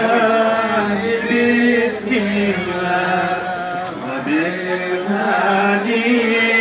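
Voices chanting an Arabic sholawat, a devotional song in praise of the Prophet, in long drawn-out notes.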